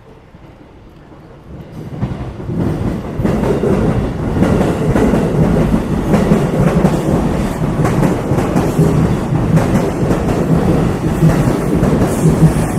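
A train passing close by. It swells in about two seconds in and stays loud, a dense steady noise.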